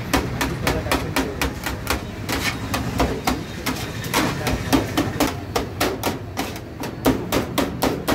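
Knife rapidly chopping cooked shawarma chicken, a fast even series of sharp knocks, about four to five strokes a second.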